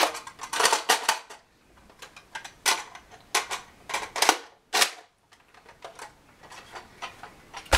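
Sharp plastic clicks and clacks from a Nerf Longstrike CS-6 dart blaster being handled, its dart magazine worked in and out. The clicks come irregularly, with a lull about five seconds in.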